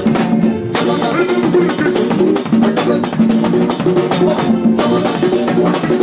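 Loud live band music with a drum kit beat and keyboard, heard in a club crowd. The cymbals and highs drop out briefly twice, about half a second in and again near the end.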